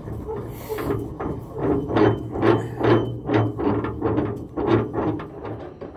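The steel clamping handle of a steam locomotive's smokebox door being wound along its threaded spindle, giving a run of metallic clicks and knocks about two to three a second. It is tightening the clamp that draws the dart back against the crossbar to pull the door shut.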